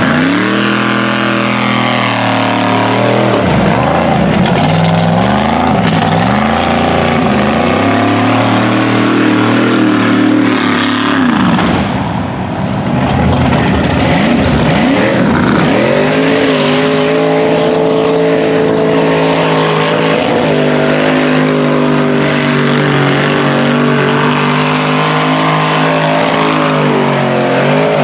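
Modified mud trucks' engines run at full throttle through a deep mud pit, revving up and down as the tires spin. About twelve seconds in the sound dips briefly, then an engine holds high revs steadily.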